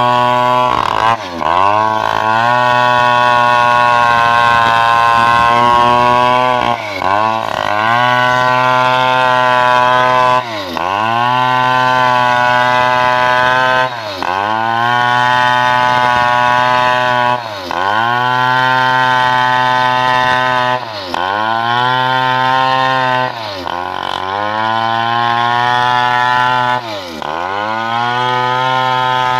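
Two-stroke chainsaw at full throttle cutting into a sengon log, its pitch dipping briefly and climbing back about every three to four seconds as the throttle is eased and reopened.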